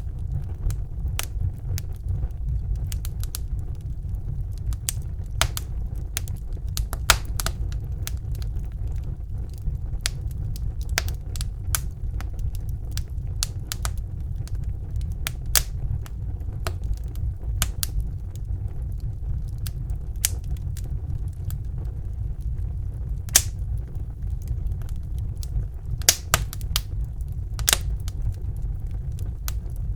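Wood fire burning in a fireplace: a steady low rumble of the flames with frequent sharp, irregular crackles and pops of the burning wood.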